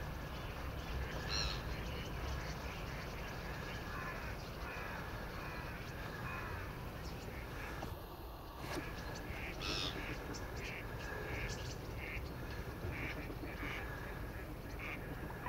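A huge flock of starlings pouring out of its reedbed roost: a steady low rush of wings with many short bird calls over it, the calls coming thicker in the second half.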